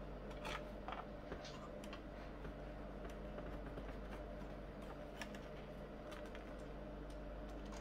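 Scattered light clicks and taps from a screwdriver and hands working on the Amiga 500 Plus's internal floppy drive and its metal shield, over a steady low hum.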